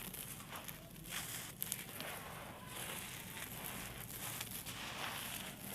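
Small dried blocks of red sand and dirt crumbling, a steady gritty crackle with a few sharp pops.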